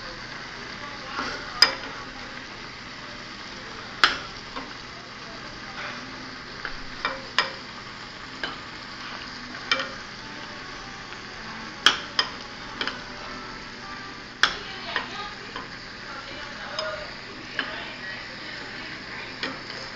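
A spoon stirring a bubbling mixture in a saucepan, knocking sharply against the pan a dozen or more times at uneven intervals, over a steady hiss of boiling.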